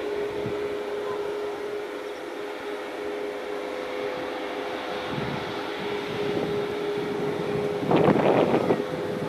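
Airbus A340-600's four Rolls-Royce Trent 500 turbofans running at low taxi power as the airliner rolls slowly: a steady jet hum with two held tones. A short crackling burst of noise about eight seconds in, louder than the engines.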